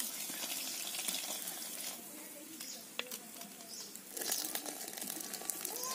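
Small fish frying in hot oil, a steady sizzle that drops away about two seconds in, leaving faint voices in the background.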